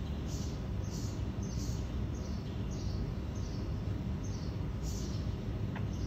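Steady low hum of a honeybee swarm clustered in the open, with a bird chirping over it in short, high, slightly falling chirps, about two a second.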